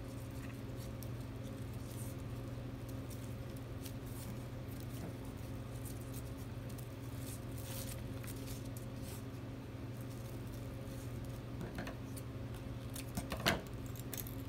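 Faint rustling and crinkling of glitter ribbon being looped and pinched by hand into a bow, over a steady low electrical hum. A sharper rustle and tap comes near the end.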